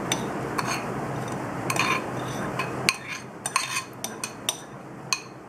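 Sharp clinks and scrapes of a ceramic mixing bowl and utensils against each other and a metal tart pan as toasted vermicelli is tipped out of the bowl, a dozen or so irregular knocks over a steady background hiss that drops away about halfway through.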